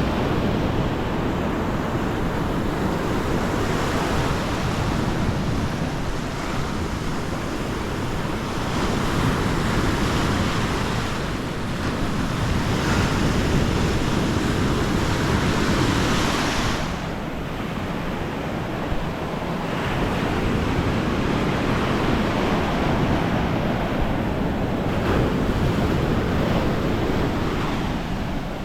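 Sea waves breaking and washing up the beach in a continuous surging hiss that swells and eases. The loudest surge peaks about two-thirds of the way through, then drops away. Wind buffets the microphone with a low rumble.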